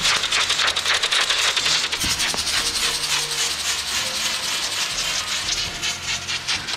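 Solid rocket motors on a spinning 3D-printed toroidal propeller, burning with a dense crackling hiss that slowly fades toward the end.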